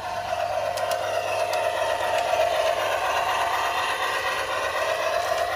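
Bachmann Climax G-scale model steam locomotive running along garden-railway track: a steady whir of its electric motor and gearing, with wheels rolling on the rails.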